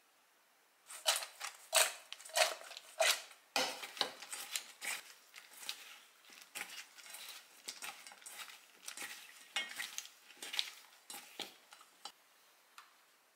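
Thin raw sweet potato slices rustling and clattering against a stainless steel bowl as hands toss them to coat them in oil, a quick run of crisp clicks starting about a second in and trailing off near the end.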